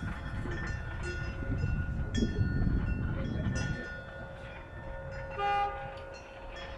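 Low rumble of a passing heavy vehicle, loudest in the first four seconds, with a short horn-like tone about five and a half seconds in.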